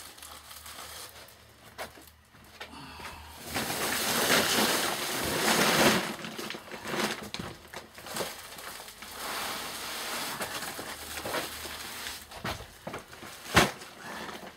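Filled sacks and a paper sheet being shifted and handled on a table: rustling and scraping, loudest for a couple of seconds early on, with scattered light knocks and one sharp knock near the end.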